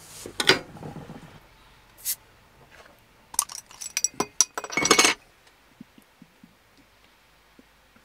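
A glass beer bottle clinking against a metal bottle opener as its crown cap is prised off, in a string of sharp clicks that ends in a short hiss about five seconds in.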